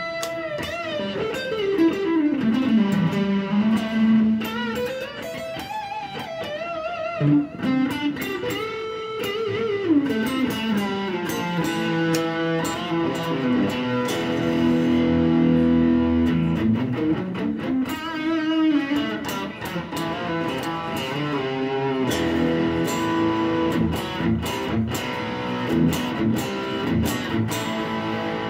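Fender electric guitar played through an amplifier: single-note lead lines with string bends and vibrato, the notes gliding up and down in pitch between plucked attacks.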